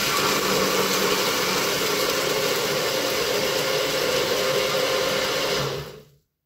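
Personal bullet-style blender running steadily, its blades crushing ice with orange and pineapple juice; the motor stops near the end.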